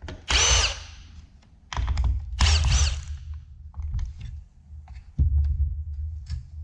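Cordless drill/driver backing out screws in short bursts, its motor whine rising and falling with each pull of the trigger, with a few clicks and knocks between the bursts.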